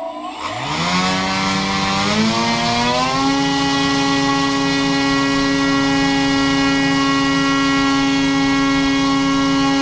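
Small brushless outrunner RC motor spinning an 11-by-8.5-inch propeller. It spins up from about half a second in, its whine rising and stepping up in speed twice within the first three seconds, then holds a steady high whine.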